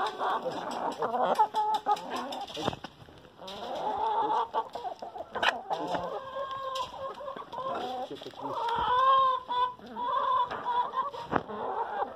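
A flock of hens clucking and calling over one another, with a few sharp taps among the calls.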